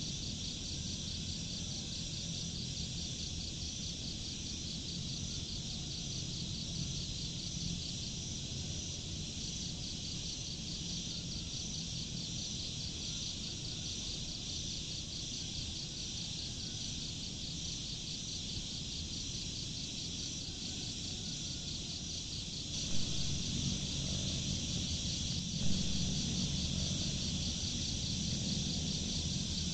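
Steady chorus of insects trilling at a high pitch over a low background rumble. Near the end, two brief knocks stand out.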